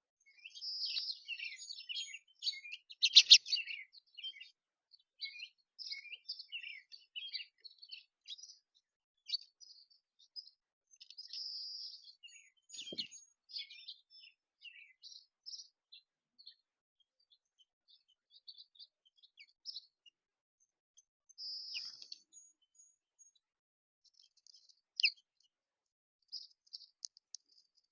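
Several small songbirds chirping and calling in short, high notes, with a few longer buzzy trills among them. The calls are busiest in the first few seconds and grow sparser later.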